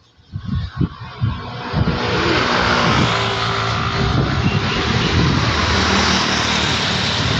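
Gusty wind buffeting the microphone with low thumps, building within about two seconds into a steady roar of wind ahead of a storm.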